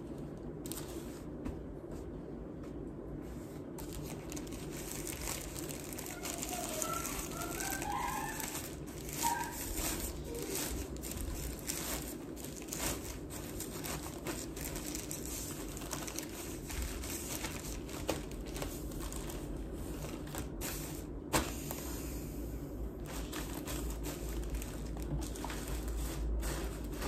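Clothes and packing bags rustling and crinkling as they are handled and packed into a suitcase, in many short irregular bursts over a steady low hum.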